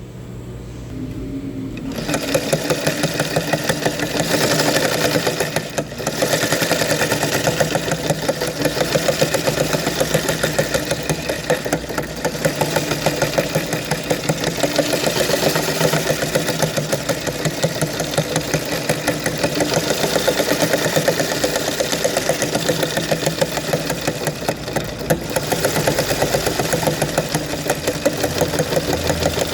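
Sewing machine running fast, its needle stitching in a rapid, steady clatter. It comes up to speed in the first two seconds and briefly slackens a few times along the way.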